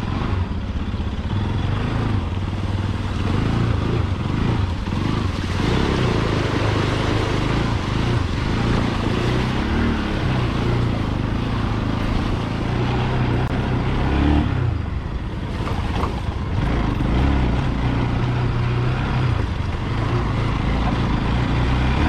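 Motorcycle engine running under way, its pitch rising and falling several times with the throttle, over a steady rush of ride noise.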